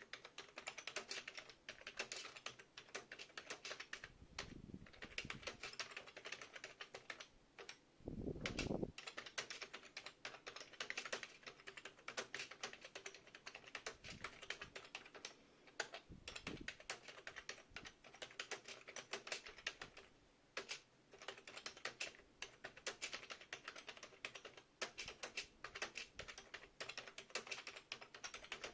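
Continuous fast typing on a KB-4001 computer keyboard, a dense run of key clicks with a few brief pauses. A few dull low thumps sound among the clicks.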